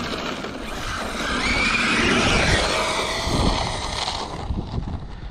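Arrma Mojave 8S radio-controlled truck driving: its brushless electric motor whines, rising and then falling in pitch, over a rushing noise from the tyres. It is loudest near the middle and drops away about four seconds in.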